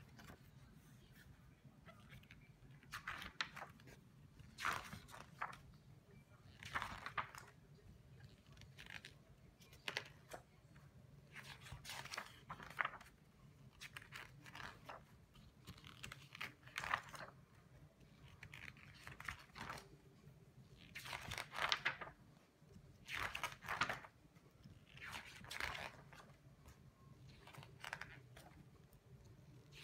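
Glossy pages of a large hardback book being turned by hand, a short papery swish every second or two, over a dozen times.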